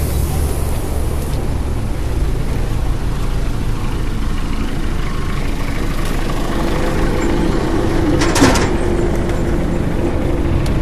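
Heavy truck engine idling with a steady low rumble, and a short burst of hissing air about eight seconds in.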